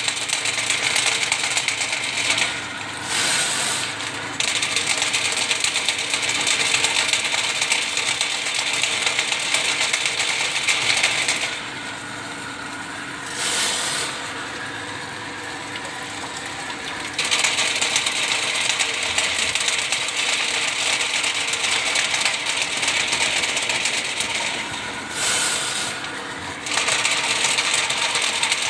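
Steel spiral cable of a Ridgid drain-cleaning machine spinning as it feeds out of a pipe, rattling and clattering metallically. The rattle drops away three times, once for about five seconds in the middle.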